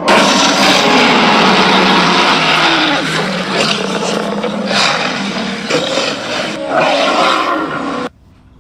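Dinosaur roar sound effect: a long, rough, growling roar that rises and swells in places and cuts off suddenly near the end.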